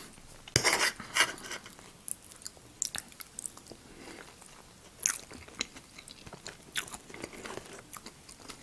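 Close-miked eating sounds: a woman chewing a forkful of food, with scattered sharp wet clicks and smacks from her mouth.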